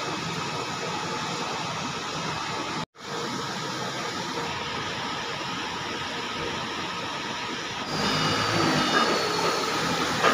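Steady rushing machinery noise of a factory floor, broken by a sudden instant of silence about three seconds in. It grows louder from about eight seconds in, with a faint high whine and a low hum added.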